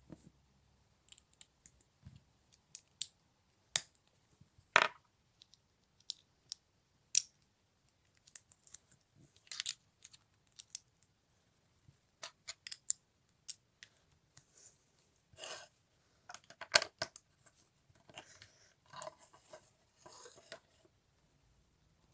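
Small plastic LEGO bricks being handled and pressed together: irregular sharp clicks and short bursts of clattering pieces, with a couple of louder clacks.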